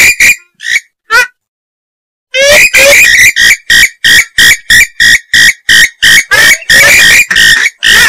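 Recorded purple swamphen calls played as a hunting lure: a few loud calls near the start, a pause of about a second, then a long fast run of calls at about three a second.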